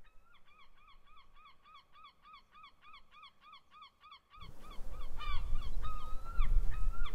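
A bird calling in a fast, even series of short calls, about three or four a second. About four seconds in, a loud low rumble joins and the calls become more irregular.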